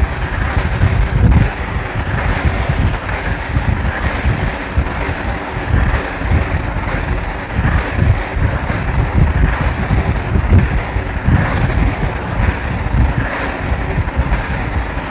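Vehicle driving along a road, a steady low engine and road rumble with wind buffeting the microphone.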